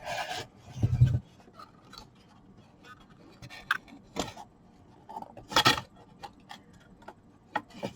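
Scattered light clicks and knocks of small objects being handled, the loudest a little under six seconds in, with a brief hummed "mm" from a person about a second in.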